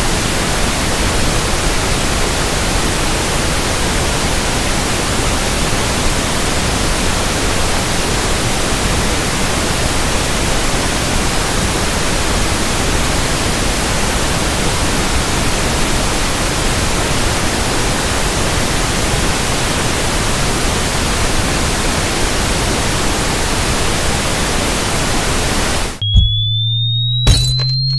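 Pink noise test signal for running in new speakers or headphones: a steady, loud hiss spread evenly across all pitches. About 26 seconds in it cuts off abruptly and a slowly rising sine-tone sweep begins, with a steady low tone beneath it and a couple of sharp clicks.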